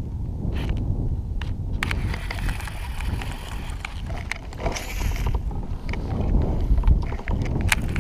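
Wind rumbling on the microphone, with scattered sharp light clicks and a brief rushing hiss about five seconds in.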